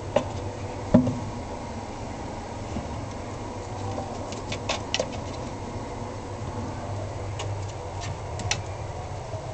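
Kittens moving and playing about a wooden cubby and cat bed in a cage: scattered light taps and knocks, two sharper knocks near the start and small clusters of clicks later, over a steady low hum.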